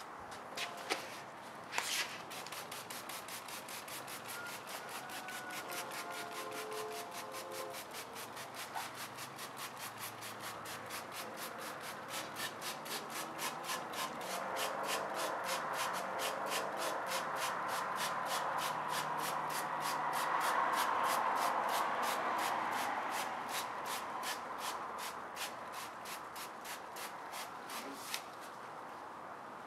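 Trigger spray bottle pumped over and over, each pull giving a short hiss of degreaser spray onto a tyre and wheel, in a long, even run that starts about two seconds in and stops near the end.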